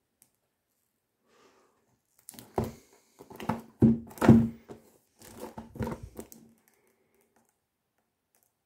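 Cellophane wrapping on a perfume box crinkling and rustling as the box is handled and turned in the hands, in a run of sharp bursts between about two and six and a half seconds in, loudest near the middle.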